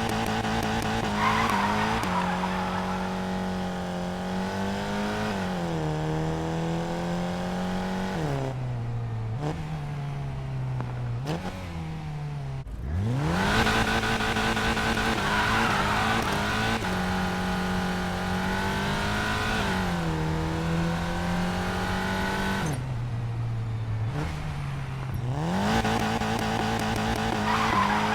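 Volkswagen Golf GTI Clubsport's turbocharged four-cylinder engine at full throttle in launch-control starts, its revs climbing and dropping back at each quick upshift. Two full runs go through three upshifts each, and a third launch begins near the end.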